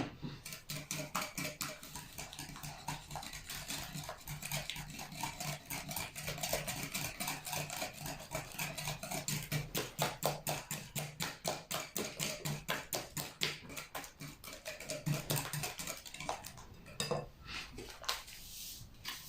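Eggs and sugar being beaten in a bowl by hand, the whisk clicking quickly and steadily against the bowl's sides, easing off near the end.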